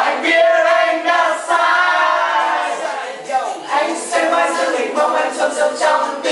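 A group of young men and women singing a Vietnamese pop song together, unaccompanied.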